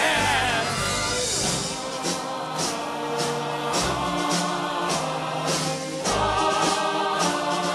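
Stage-musical orchestra playing with a choir singing over it, to a steady beat of about two strokes a second. It grows louder about six seconds in.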